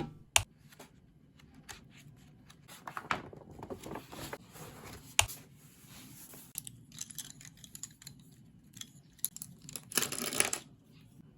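Hands handling small objects: scattered light clicks and taps with soft rustling, and a louder burst of rustling about ten seconds in.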